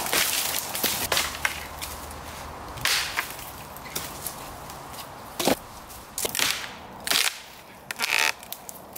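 Wooden branches being dragged through leaf litter and broken by hand: rustling of twigs and leaves, then several sharp cracks of snapping wood, the loudest about halfway through.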